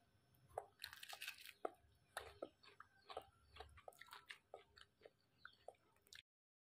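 Faint chewing and crunching of food: a string of small irregular crackles and clicks that stops abruptly a little after six seconds.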